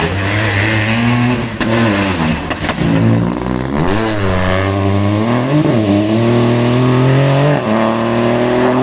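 Rally car's engine as it slows for a tight hairpin, the revs dropping and rising several times in the middle, then climbing steadily as it accelerates away up the road.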